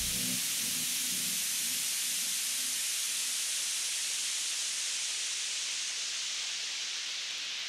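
A steady, even hiss like falling rain or static, slowly fading, left alone as the music ends. Faint traces of the track's last low notes die away in the first couple of seconds.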